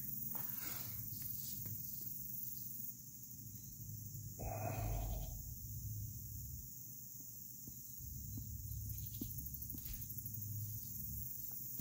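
Domestic tabby cat purring while being stroked: a low rumble that comes and goes in long stretches, with one short higher sound about four and a half seconds in.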